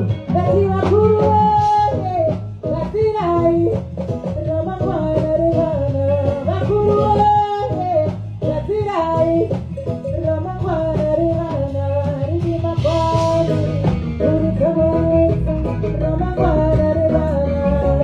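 Live band playing a song at a sound check: guitar melody over a heavy bass line, with singing.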